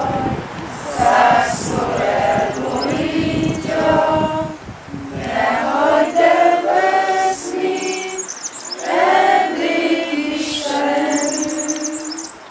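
A group of voices singing a song together in chorus, in phrases of held notes.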